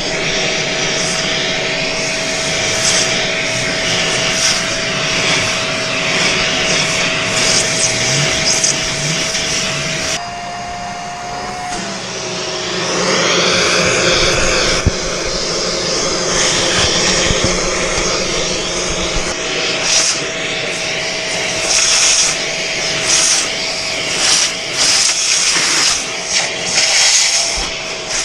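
Vacuum cleaner running, sucking dust out of a desktop PC case, with a steady motor whine that steps up in pitch around ten seconds in and then drops back. Short clicks and knocks of the nozzle against the case come in the later part.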